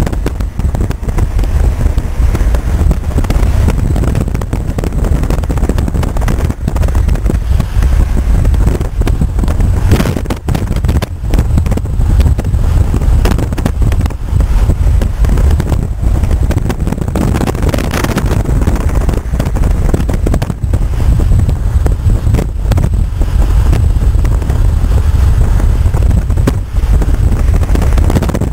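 Loud, steady rumble of wind buffeting the microphone together with road noise from a car travelling at highway speed.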